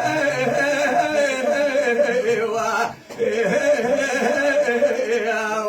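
Unaccompanied male voice of a Kurdish dengbêj singer holding long, wavering notes, with a short breath break about three seconds in.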